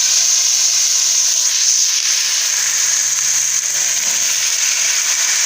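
Long beans sizzling in hot oil with fried garlic in a pan: a loud, steady hiss of frying.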